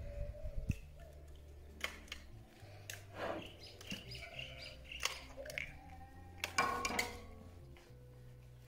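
Eggs being cracked and handled: scattered sharp taps and clinks of shells against metal pans, the loudest cluster near the end, over soft background music.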